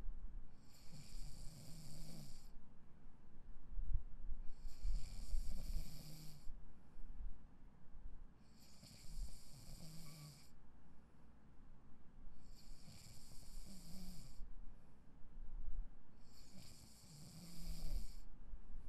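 A sleeping person snoring in a slow, even rhythm: five snoring breaths about four seconds apart, each a low rasp with breathy hiss.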